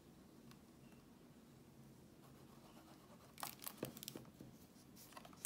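Near silence while liquid glue is squeezed onto a paper panel, then hands handling the glue bottle and a clear acetate box: a short cluster of clicks and plastic-and-paper rustles about three and a half seconds in, and another near the end.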